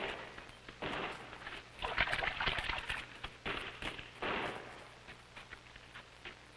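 Leaves and twigs of dense brush crackling and rustling in several bursts, loudest about two seconds in and dying away after about five seconds.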